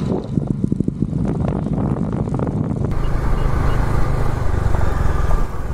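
Bajaj Dominar 400's single-cylinder engine running steadily as the motorcycle rides along.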